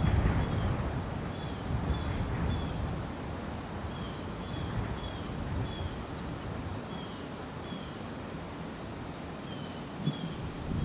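Wind buffeting the microphone in gusts with a faint rustle of leaves, while a bird repeats short, high chirps every second or so.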